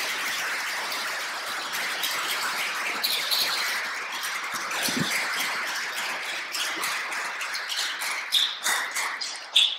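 Hall room noise: a steady hiss with scattered small clicks and rustles. There is a brief low scrape about five seconds in, and a few short squeaks near the end.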